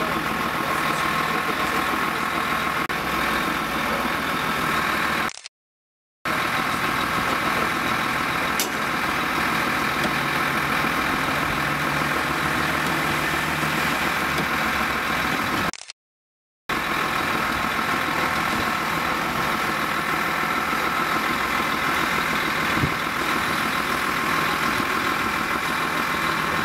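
Truck engine running steadily while it drives a truck-mounted crane pulling a wrecked car out of a ditch. The sound cuts out abruptly twice, each time for under a second.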